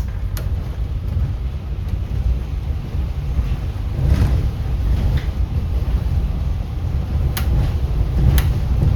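City bus on the move, heard from inside the cabin: a steady low rumble of engine and road, with a few short sharp clicks or rattles, two of them about a second apart near the end.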